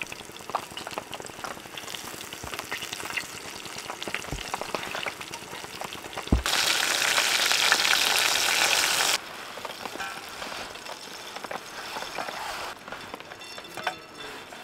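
Pike fillets frying, sizzling with small crackles. About six seconds in, a much louder sizzle starts suddenly and cuts off about three seconds later.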